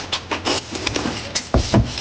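Two people eating noodle soup: a run of short, irregular slurping and chewing clicks, with a low thud about one and a half seconds in.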